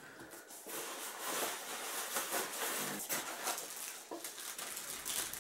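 Rustling and crinkling of packaging being handled, with many small crackles.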